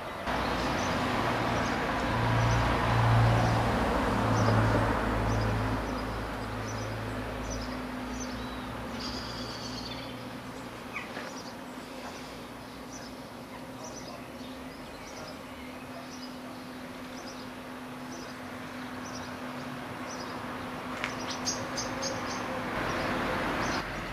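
Small birds chirping: repeated short, high calls over a steady low hum, with a low rumble that is loudest in the first few seconds and fades away by about eight seconds in.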